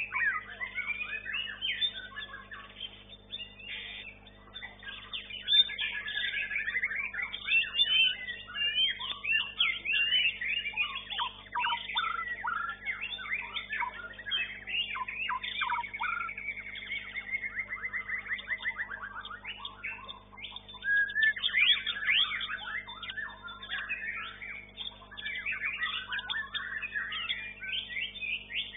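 White-rumped shama (murai batu) singing a fast, varied song of whistles, trills and chattering phrases, easing off briefly about four seconds in and again around nineteen seconds. A faint steady hum lies underneath.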